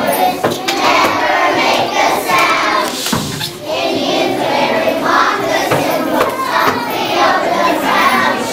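A group of young children singing together, many voices at once.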